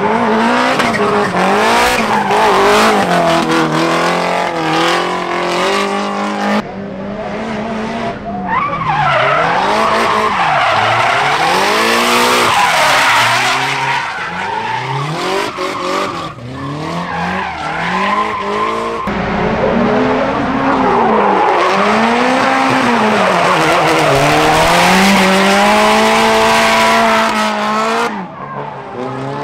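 Drift cars sliding on track: engines revving hard, rising and falling in pitch as the throttle is worked, over steady tyre squeal. The sound jumps abruptly to another car three times.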